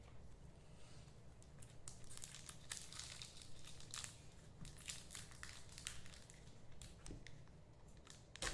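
Faint, irregular crinkling and tearing of trading-card pack wrappers being opened and handled, starting about a second and a half in and thinning out near the end.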